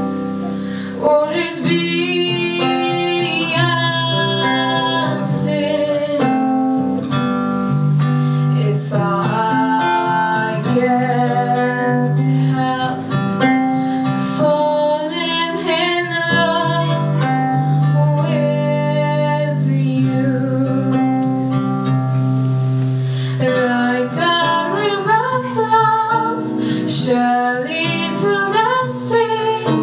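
A woman singing a song into a microphone over instrumental accompaniment, holding long notes.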